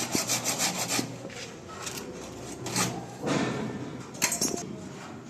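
Hand-tool scraping: quick back-and-forth rasping strokes, about five a second, stop about a second in. A few single strokes follow, then a short flurry near the end.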